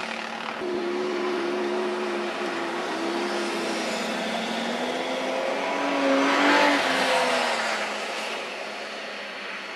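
Car engine revving up and down as the car slides sideways on a snowy ice track. The pitch climbs to its loudest a little past the middle, with a rush of tyre and snow noise, then falls away.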